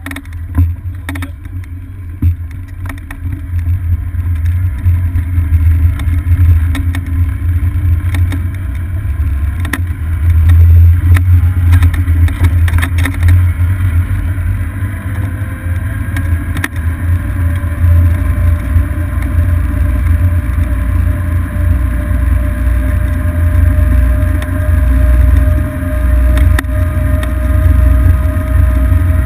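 Golf cart driving along a paved road, recorded from a camera mounted on the cart: a loud, steady low rumble with occasional clicks and rattles. A faint whine rises slowly in pitch through the second half as the cart's motor speeds up.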